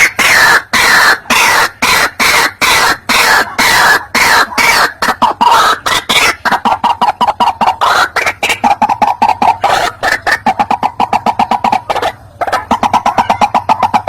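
White-breasted waterhen (ruak-ruak) calling: a loud, rapid series of harsh repeated notes, about three a second at first, speeding up into shorter, quicker notes about halfway through, with a brief break near the end. This is the bird's territorial call, played as a lure to bring other waterhens in.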